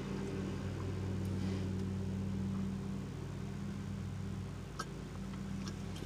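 Steady low hum of a car running at idle, heard from inside the cabin, with a couple of faint small ticks.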